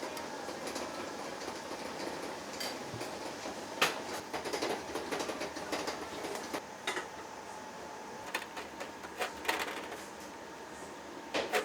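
Ramen shop kitchen at work: a steady ventilation hum under scattered clinks and knocks of bowls, pots and utensils, the sharpest about four seconds in and near the end.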